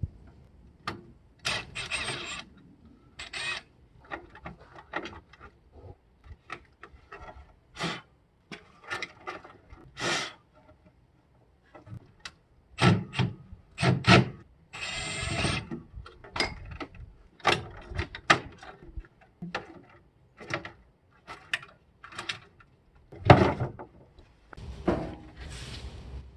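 Hand tools and parts being worked during the teardown of a CRT television cabinet: irregular clicks, knocks and short scrapes, with a few longer rasping strokes and a sharp knock near the end.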